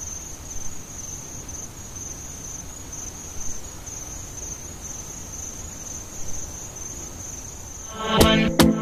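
Crickets trilling steadily at a high pitch over a low background rumble. Music with a strong beat starts abruptly near the end.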